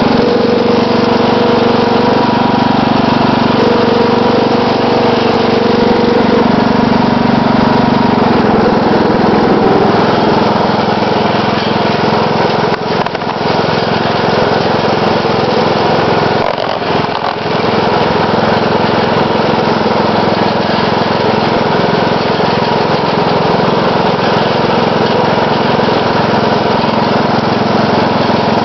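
Riding lawn mower's 12.5 hp Briggs & Stratton engine running steadily as the mower is driven along a road, with two short dips in level past the middle.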